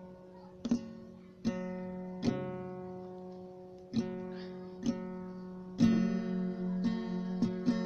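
Acoustic guitar playing slow strummed chords. Each chord is left to ring out, about one a second, and the strums come quicker near the end.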